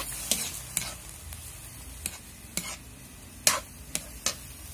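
Metal spatula scraping and clinking against a wok as chicken and squid balls are stir-fried in soy sauce, over a steady sizzle. About seven sharp scrapes stand out, the loudest a little past halfway.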